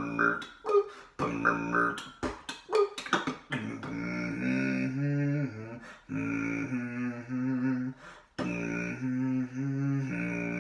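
Solo beatboxing: a few seconds of quick mouth-made drum hits and clicks, then sustained hummed bass and melody tones pulsing in rhythm, broken by two short gaps.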